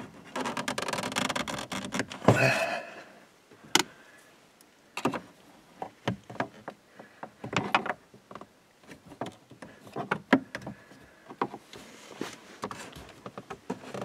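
Plastic dash trim panel on a Ford F-150 being worked loose by hand and with a screwdriver: a run of scraping and rubbing plastic, a sharp click about four seconds in, then scattered light clicks and scrapes.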